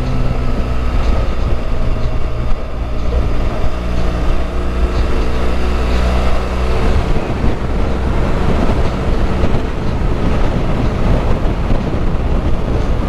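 BMW R1200GS's boxer-twin engine running at steady highway speed, with wind rushing over the microphone. About halfway through, the engine note sinks under louder wind rush.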